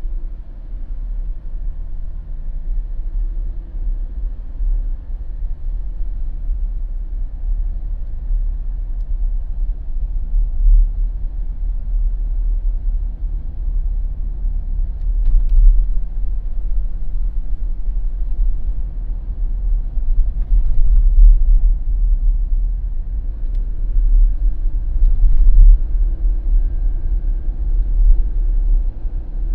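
Jeep driving slowly on a residential street: a steady low rumble of engine and tyres on asphalt with a faint engine hum, and a few light ticks from the road around the middle and near the end.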